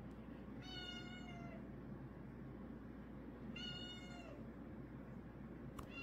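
A cat meowing faintly twice, each meow lasting under a second and dropping in pitch at the end, over a steady low hum.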